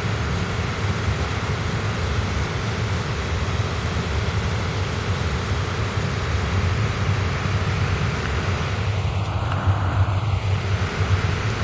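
Floodwater rushing steadily across a highway and spilling between guardrail posts: an even hiss over a low rumble.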